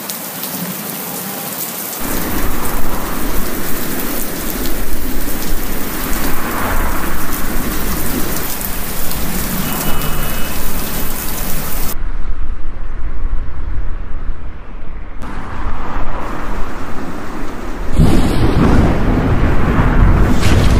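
Rain with rumbling thunder. A low rumble joins about two seconds in. The high hiss drops out abruptly about two-thirds of the way through, and a louder, deeper rumble comes in near the end.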